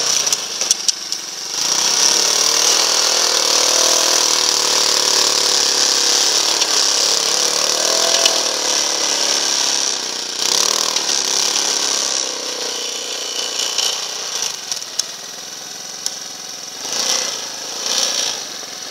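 Small engine of a Leshiy 2x2M two-wheel-drive motorcycle working under throttle as it ploughs through deep snow, its engine speed rising and falling. It runs quieter in the second half.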